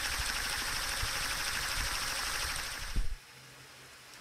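Small peristaltic pump running close up: a quiet, steady whirring hiss with a fast, fine ticking, with a few soft handling knocks. A sharper knock about three seconds in, after which the sound drops away to a faint background.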